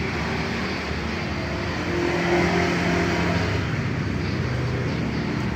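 Small motorbike engine running steadily, a little louder about two seconds in, with an even hum.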